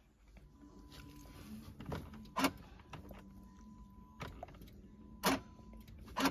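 About five sharp clicks from the car's electrics as fault codes are cleared across all its control modules, with a faint steady high tone underneath. The three loudest clicks come about 2.5, 5.3 and 6.2 seconds in.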